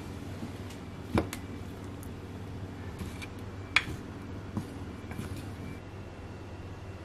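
A few light knocks and clicks of kitchen utensils or dishes against a steady low hum; the sharpest click is about four seconds in.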